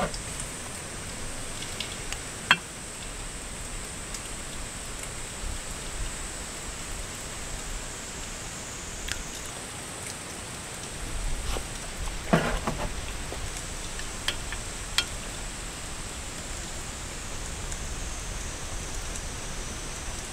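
Steady rain falling on a camping tarp, with low wind rumble on the microphone. A few sharp clicks and clinks of chopsticks against metal dishes come through, the loudest a little after two seconds and a short cluster around the middle.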